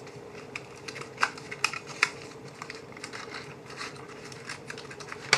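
Scattered light clicks and taps of a Victorinox Swiss Army knife being handled, its metal tools clicking, over a faint steady hum.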